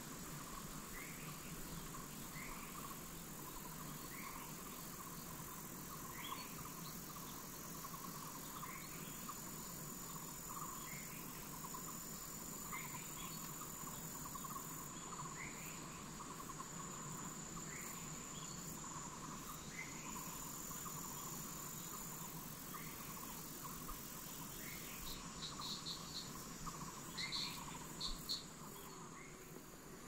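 Forest insects chirring in a steady, high, even drone, with a short call repeated every second or two over it. A few louder, sharper chirps come near the end.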